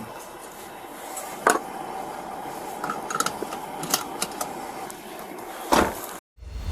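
Scattered sharp clicks and knocks over a faint steady hum, with a louder knock near the end just before the sound cuts off abruptly.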